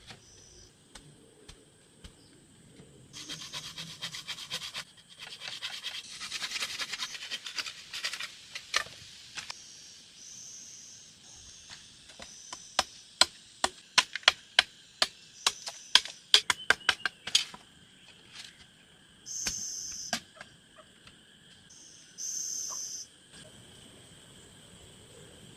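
Rasping, rubbing sounds, then a quick run of sharp knocks lasting about five seconds, over a steady high insect drone with a few short high calls.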